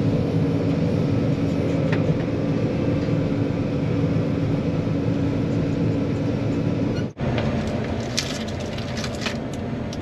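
John Deere 9500 combine running steadily, heard from inside the cab, while its unloading auger pours shelled corn into a grain cart. About seven seconds in, the sound breaks off sharply and gives way to a quieter steady cab drone with a few light clicks.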